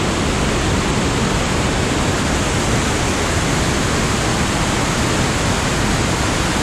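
The Rhine Falls, a large river waterfall, pouring down over rock steps: a loud, steady rush of falling water.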